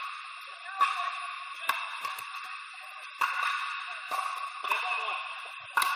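Pickleball paddles striking the hollow plastic ball, a sharp pock about once a second, echoing in a large indoor court hall over a steady background din.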